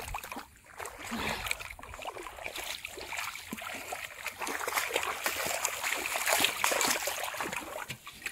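Shallow muddy water splashing and sloshing, a steady run of small splashes, as a person wades through it and grabs a fish with bare hands.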